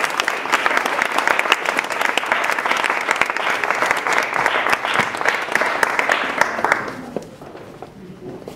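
Audience applauding, a dense run of clapping that dies away about seven seconds in.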